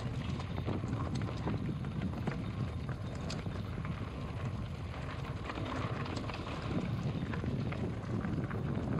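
Wind rumbling on the microphone, with scattered light clicks and taps throughout.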